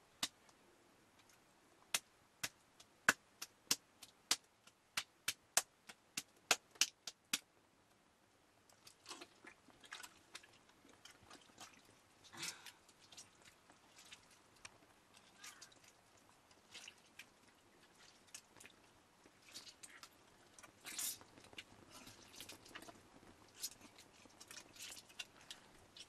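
Soft, wet squelching and rustling as lumps of butter are pressed by hand into a hide bag. In the first several seconds a run of sharp clicks, about two a second, sits over the handling.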